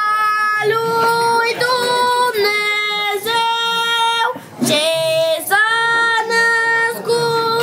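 A group of high voices singing a Romanian Christmas carol in unison, on long held notes, with a short break for breath about four and a half seconds in.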